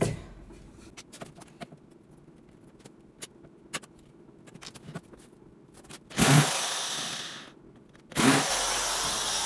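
Cordless screwdriver running in two spells, the first about six seconds in and fading after a second or so, the second starting about two seconds later and running on steadily, as it drives a screw into the wooden frame of a cage door. Before it, light knocks and clatter from wooden parts being handled.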